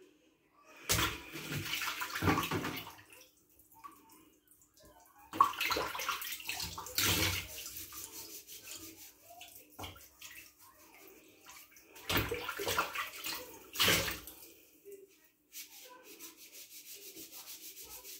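Dishwater splashing and sloshing in a stainless steel sink in three loud spells as utensils are washed. From about three seconds before the end, a sponge scrubs a black slotted spatula in quick, even strokes.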